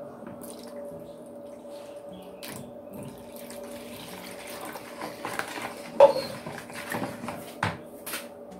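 Milk poured from a plastic measuring cup into a plastic mixing bowl, splashing into the egg and margarine mixture, with a sharp knock about six seconds in.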